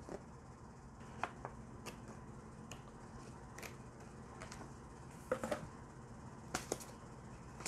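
Faint handling noise from a DVD box set's paper and card contents: a few scattered soft clicks and rustles as the digipak, photo booklet and photo cards are moved by hand, over a low steady room hum.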